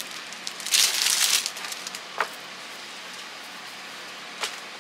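Clear plastic packaging crinkling as a wrist rest in its bag is handled, in a burst about a second in, followed by two short light clicks.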